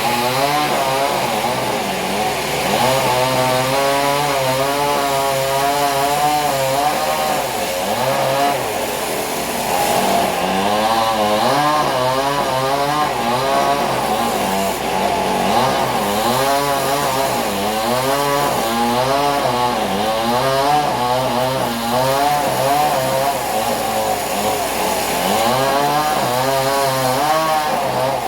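Engine-driven sawmill saw running and cutting wood, its engine pitch wavering up and down as the load on the blade changes.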